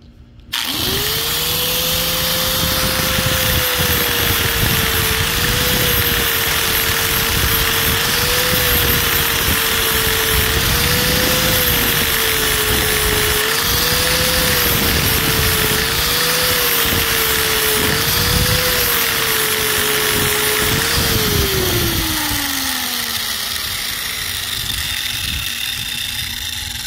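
Angle grinder with an 80-grit flap wheel switched on, running at a steady high pitch that dips slightly every couple of seconds as the wheel is worked against the rubber sidewall of an RC crawler tire to shave it. It is switched off about 21 seconds in and spins down, its pitch falling.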